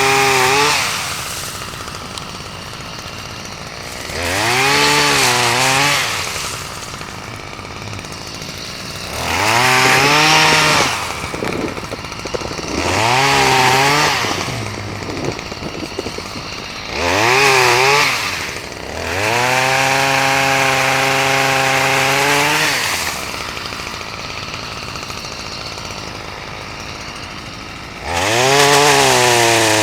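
Two-stroke chainsaw revved up to full speed in repeated bursts and dropping back to idle between them, cutting up trees broken by an ice storm.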